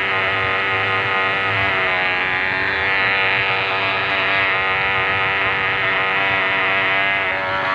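Radio-controlled model boat's motor running steadily at speed, a high buzzing whine over the splash of water along its hull.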